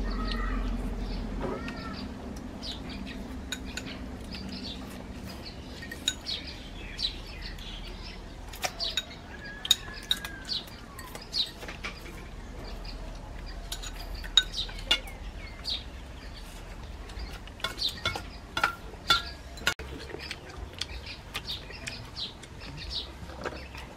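Chopsticks and a serving spoon clinking and tapping against ceramic bowls and a metal serving bowl, in sharp, irregular clinks that come more often from about six seconds in. Birds chirp in the background.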